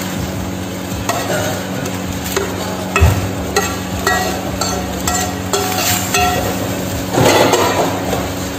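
A metal spatula scraping and clinking against a frying pan as the pan is scraped out into a pot, with a series of sharp clicks and knocks and a short, louder noisy rush near the end, over a steady hum.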